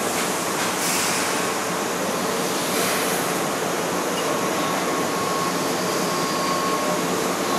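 A Keihan 2600-series electric train standing at the platform, with the steady hum and hiss of its onboard equipment. Two brief hisses come about one and three seconds in.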